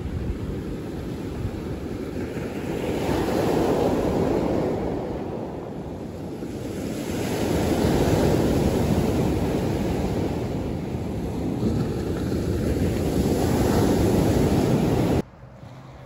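Storm surf on the Black Sea breaking on a pebble beach: a loud, steady wash of waves that swells three times as breakers come in, with wind buffeting the microphone. Shortly before the end it cuts off suddenly to a much quieter background with a faint low hum.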